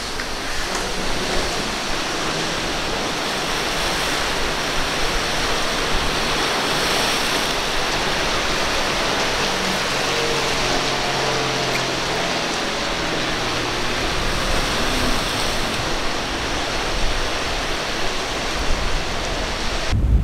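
Steady rush of surf and breaking swells churning through an inlet. A boat engine's faint hum rises through it about halfway in.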